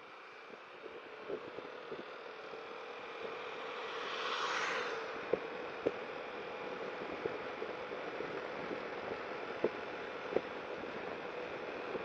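Yamaha XMAX 300 scooter's engine running with a steady hum that grows louder over the first few seconds. A brief rush of noise comes about four seconds in, and light clicks are scattered through.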